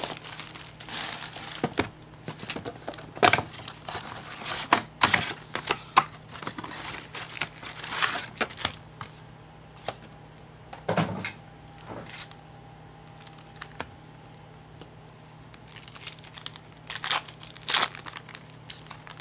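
Plastic shrink wrap crinkling and tearing as it is stripped off a sealed Topps Chrome Sapphire box of baseball cards, then scattered rustling of packaging and card packs, with a few sharp crinkles near the end.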